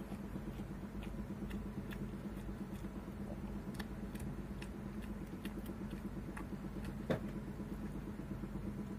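Faint chewing and mouth clicks of a man eating rice by hand, over a steady low hum, with one slightly louder short sound about seven seconds in.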